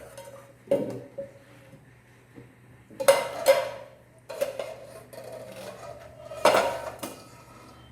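Metal pot and kitchen utensils clattering and scraping in several separate bursts as boiled potato sticks are tipped out to drain.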